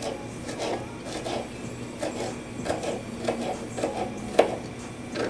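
Knife rough-chopping fresh basil on a cutting board: irregular knocks about twice a second, with one sharper, louder knock near the end.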